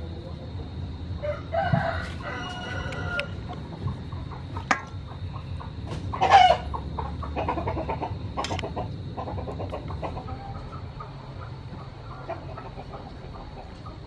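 Chickens calling: a rooster crows for about two seconds starting about a second in, and a louder, shorter call comes about six seconds in, with scattered clucks.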